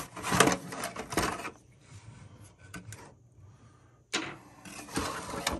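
Cardboard box and the plastic fill valve inside it being handled as the valve is pulled out: rustling and light knocking in two spells, with a quieter stretch between.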